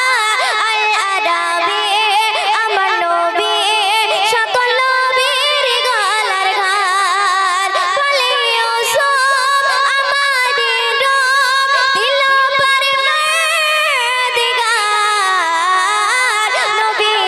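A girl singing a Bengali Islamic gojol solo into a handheld microphone, in a high voice with long, wavering, ornamented notes.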